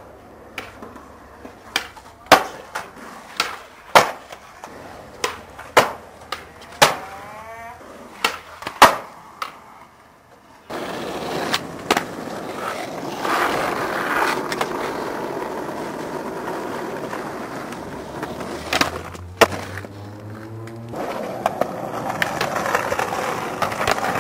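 Skateboard sounds: for the first ten seconds or so, a series of sharp wooden clacks from the board popping and landing. Then, from about halfway through, the steady rumble of the wheels rolling on concrete, with a few more knocks.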